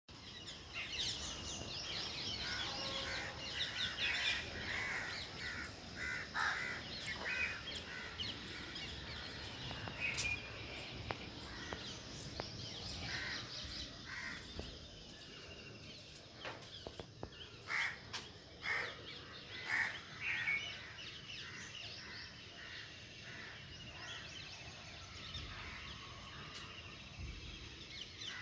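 Morning birdsong: many birds calling and chirping at once, with fast runs of repeated high notes and louder harsher calls scattered through, over a faint steady background hiss.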